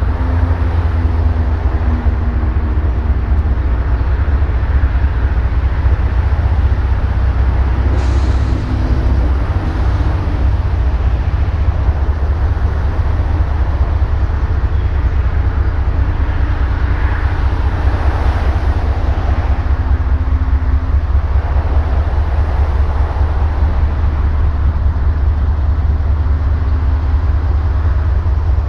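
Diesel freight locomotives running as they pull a train slowly through the yard: a steady, heavy low rumble with faint engine tones above it.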